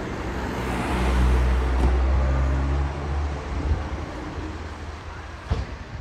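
A motor vehicle driving past close by: engine hum and tyre noise swell over the first couple of seconds, then fade away. A single sharp click near the end.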